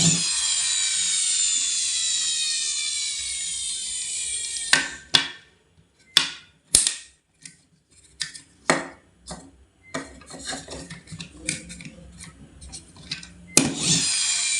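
Plastic toy vehicle whirring with a high whine that falls slowly in pitch and stops about four and a half seconds in. Then come scattered clicks and knocks of hard plastic being handled, and the falling whine starts again near the end.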